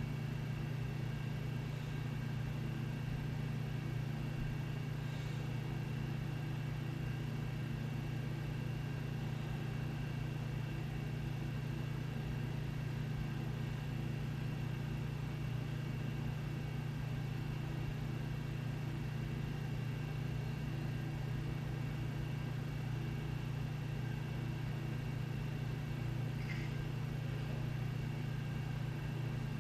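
Steady low household hum, like a fan or air-conditioning unit running, even in level with no rise and fall, plus a couple of faint brief high sounds about five seconds in and near the end.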